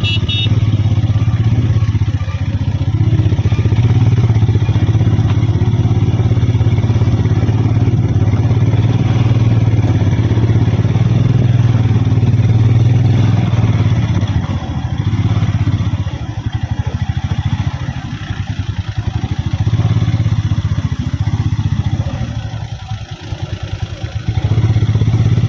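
Motorcycle engine running at low road speed on a rough gravel road, a steady low hum of rapid pulses. The sound eases and wavers for several seconds past the middle, then picks up again near the end.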